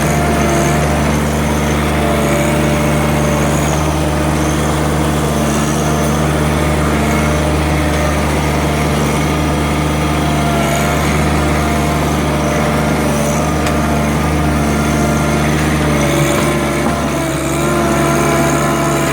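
Small diesel engine of a John Deere 1-series compact tractor running steadily while it works dirt, with slight shifts in pitch near the end.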